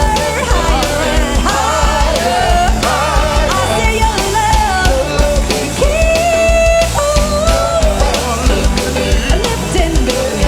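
Rock band music with a steady drum-kit beat under a wavering lead melody, including one note held for about a second midway.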